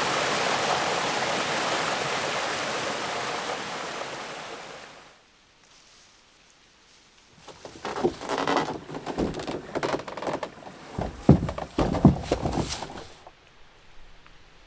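A small stream tumbling over rocks, a steady rush that fades out about a third of the way in. After a short lull come irregular footsteps and rustling in leaf litter, with a few louder knocks near the end, as a canoe is carried overturned on someone's shoulders.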